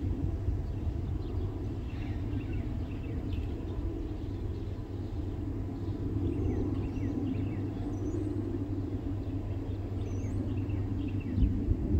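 Steady low rumble with small birds chirping over it in short, quick notes, and a couple of higher whistled notes near the end.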